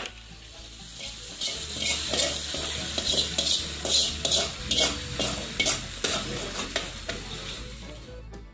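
A metal ladle stirring a pot of freshly tempered chicken curry, the hot tempering oil sizzling, with repeated scraping strokes of the ladle that grow louder about a second and a half in.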